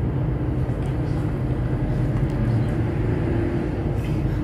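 A steady low rumble, with faint sticky clicks as clear glitter slime is squeezed and pulled up by hand, the clearest about four seconds in.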